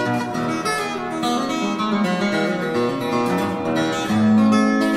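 Background music: picked acoustic guitar playing a run of notes.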